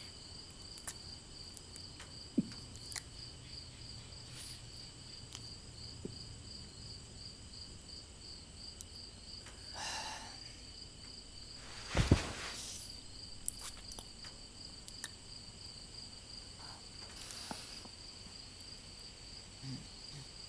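Crickets chirping steadily in a rapid, high-pitched pulsing trill. A few soft clicks and knocks come through it, with one louder thump about twelve seconds in.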